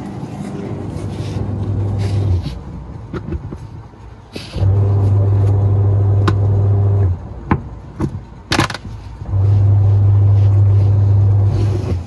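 Washing machine's electric motor humming in three bursts of about two and a half seconds each, with sharp metal clicks and knocks from tools in the gaps between.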